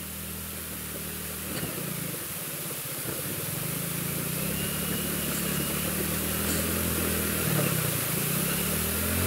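A 125cc motorcycle engine running as the bike is ridden through a shallow, stony river. Its pitch rises and falls with the throttle, and it grows louder toward the end.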